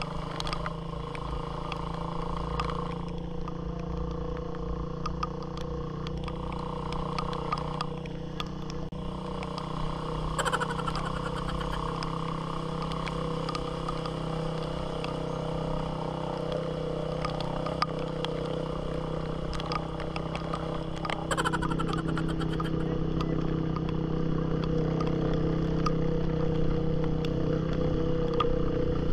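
Kawasaki Fury 125 motorcycle engine running steadily while it pushes through deep floodwater with its muffler submerged, held revved with the front brake on to keep exhaust pressure up so water cannot get into the engine through the exhaust. The engine gets louder about two-thirds of the way in.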